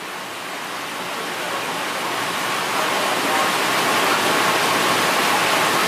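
Steady rushing hiss of running water that grows gradually louder.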